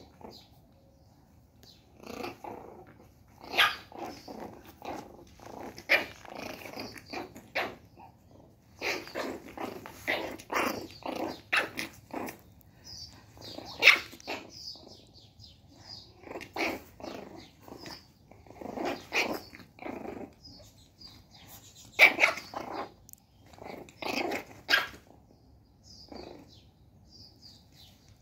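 Month-old Shih Tzu puppy growling and yapping in rapid clusters of short, sharp sounds with brief pauses between, angry play-fighting with an adult dog.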